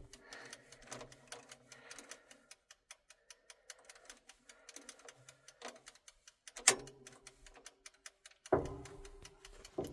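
Clockwork of a locomotive's registering speedometer ticking rapidly and evenly, with a sharper click a little over halfway and a short handling knock near the end.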